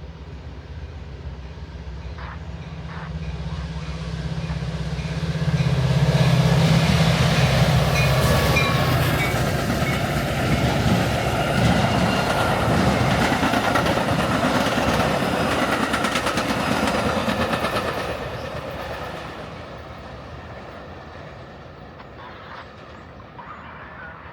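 Metra push-pull commuter train passing close by at speed. The diesel locomotive's low drone builds as it approaches, then the cars roll past with steady wheel rumble and clickety-clack over the rail joints. The sound is loudest from about six seconds in and fades away over the last several seconds.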